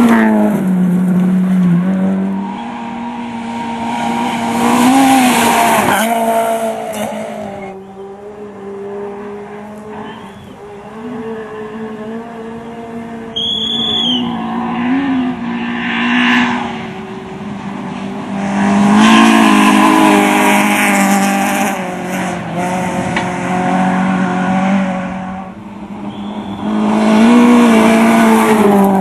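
Rally car engines revving hard and changing gear as cars pass at speed on a gravel stage, each swelling and fading as it goes by. Several separate passes, the loudest about a second in, around five seconds, from about nineteen to twenty-one seconds and near the end.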